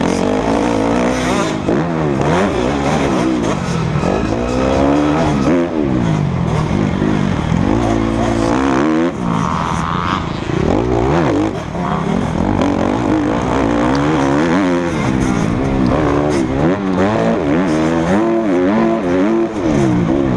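Motocross bike engine revving up and dropping back again and again as the throttle is opened and shut through the gears, heard close up from a helmet-mounted camera.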